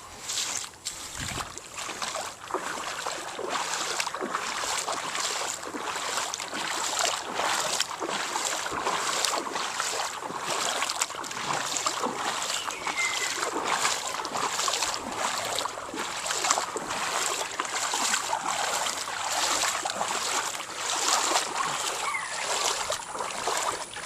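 Legs wading through knee-deep floodwater, sloshing and splashing in a steady rhythm, one surge of water with each stride.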